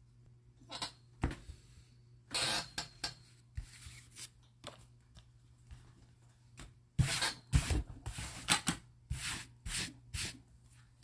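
Paper trading cards being handled: cards rubbing and sliding against one another as they are flipped through, then set down and slid on a tabletop. A string of irregular short scrapes and taps, busier and louder in the second half.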